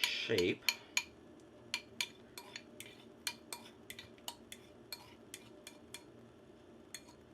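A utensil clinking and tapping against a plate while batter is spread into a circle on parchment paper: irregular light clicks, a few a second.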